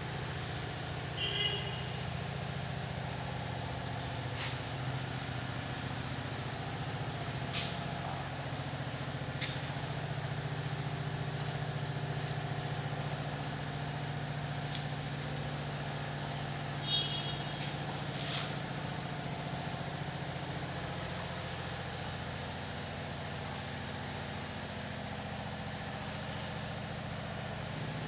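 Steady low engine hum, with scattered clicks and two brief high-pitched sounds about a second in and again about 17 seconds in.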